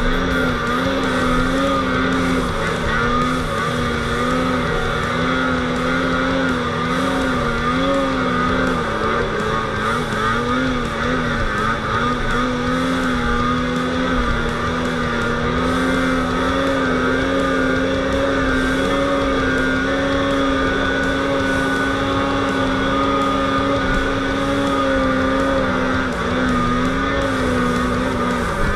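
Snowmobile engine running steadily under throttle while the sled travels through deep powder, its pitch wavering slightly up and down with the throttle.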